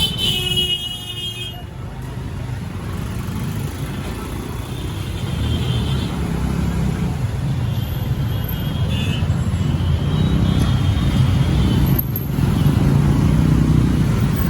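Street traffic: motor vehicles running and passing in a steady low rumble, with a short high tone in the first second or so that fits a vehicle horn.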